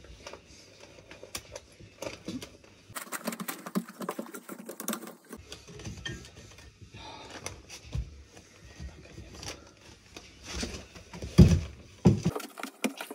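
Paper bouquet wrapping rustling and crinkling, with small clicks and scrapes of a glass jar being handled as flowers are stood in water. Near the end comes a heavy thump, then a few more knocks.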